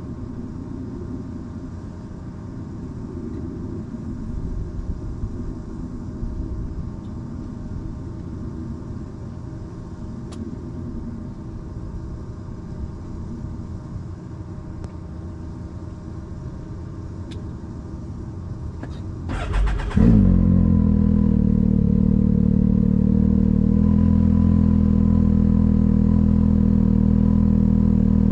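A low steady rumble, then about two-thirds of the way in the Can-Am XRC side-by-side's engine cranks briefly, catches, and settles into a loud, steady idle.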